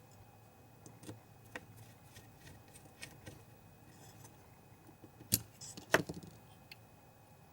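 Small parts of a DLP projector's colour wheel assembly being handled and fitted, with scattered light clicks and taps and two sharp clicks about five and six seconds in.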